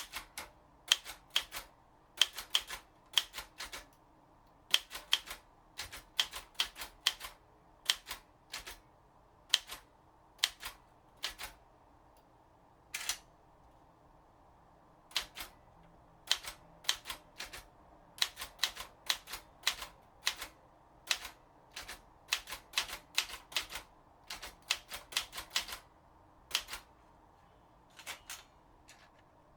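Underwood 315 portable typewriter being typed on: sharp key strikes come in uneven runs of a few letters at a time, with short pauses between words and a longer pause about halfway through.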